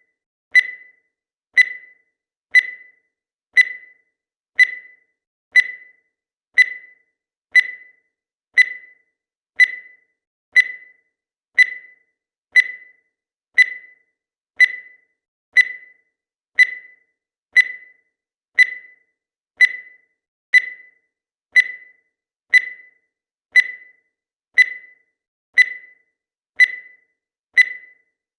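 Countdown timer's tick sound effect: a short, bright beep that dies away quickly, repeating evenly once a second.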